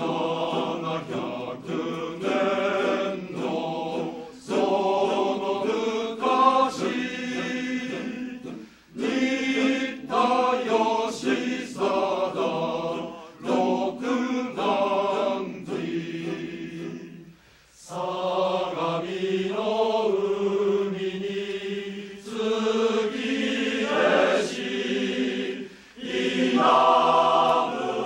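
Male-voice choir singing, in phrases with brief breath pauses about four, nine and seventeen seconds in.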